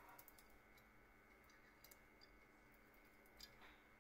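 Near silence broken by scattered faint clicks of a steel key wrench against a micromotor handpiece as it is unscrewed, with a small cluster right at the start.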